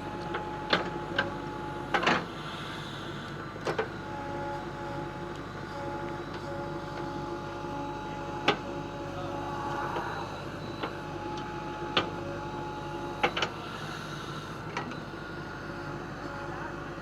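JCB backhoe loader's diesel engine running steadily, with about ten sharp clanks at irregular intervals as the machine works.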